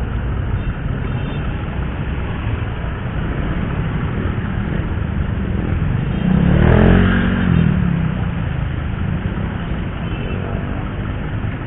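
Steady road noise of a motorcycle riding in city traffic. About six seconds in, a vehicle's engine rises and falls in pitch as it comes close and passes, the loudest moment.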